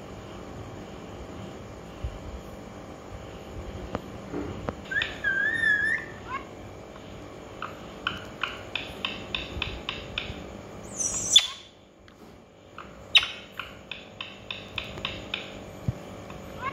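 Rose-ringed (Indian ringneck) parakeet calling: a wavering, warbling chirp, then runs of short sharp notes at about three a second, broken by one loud shrill screech near the middle.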